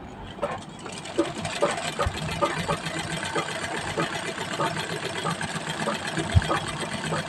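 Classic straight-stitch treadle sewing machine stitching free-motion embroidery, the needle running up and down with a fast, even clatter that starts about a second in.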